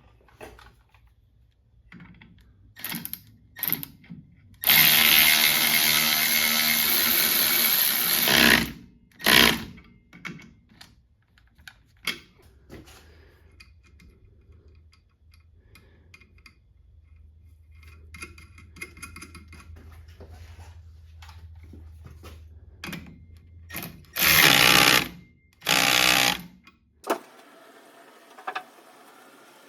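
A handheld power tool running in bursts: a long run of about four seconds, a short one right after, then two more short runs later, with light clinks of metal parts in between.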